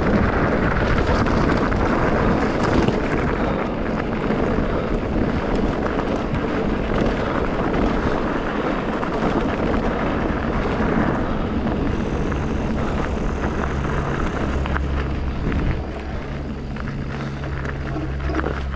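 Trail-riding noise: wind on the microphone and tyres rumbling over rough, muddy ground, a steady dense rush. About two-thirds of the way in a steady low hum with an engine-like tone comes in, and it grows more prominent near the end as the riding noise eases.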